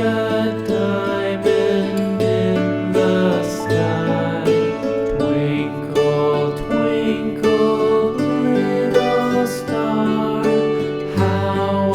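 Gentle background music with plucked strings, like a soft guitar lullaby.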